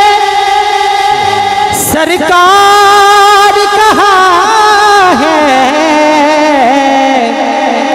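Solo male voice singing a Punjabi devotional kalam into a microphone, drawing out long, wavering held notes, with a brief break just before two seconds in.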